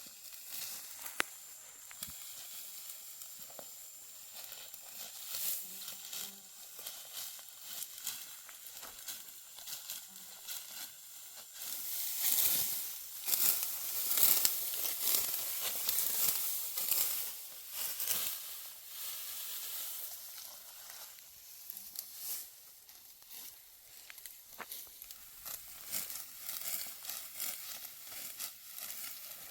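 Dry wheat stalks rustling and crackling as they are cut and handled, louder and denser from about twelve to nineteen seconds in.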